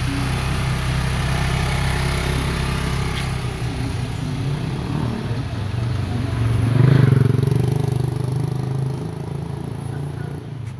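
A 35cc four-stroke brush cutter engine running steadily, swelling louder for a moment about seven seconds in.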